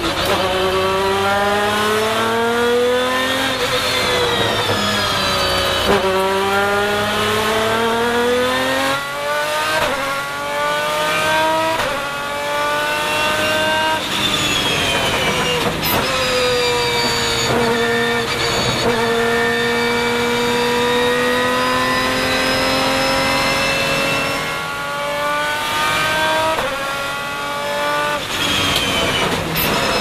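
Lamborghini Murciélago 670 R-SV GT1's 6.5-litre V12 heard from inside the cockpit at full throttle, its pitch climbing and then dropping sharply at each upshift several times in the first half. It then holds a long, slowly rising note in a high gear, dips briefly about three quarters through and climbs again.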